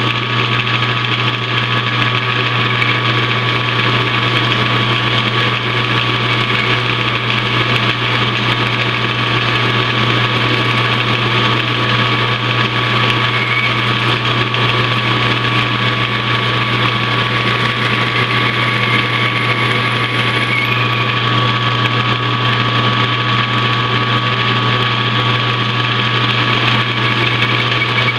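Metal lathe running steadily while boring a part: a constant machine hum with a thin steady high tone over it.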